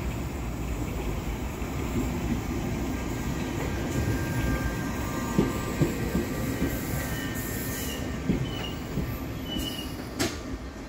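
London Underground 1973 Tube Stock train rumbling into the platform and slowing, its wheels knocking over rail joints a few times. Short high wheel or brake squeals come in from about six seconds in, and there is a brief sharp hiss near the end.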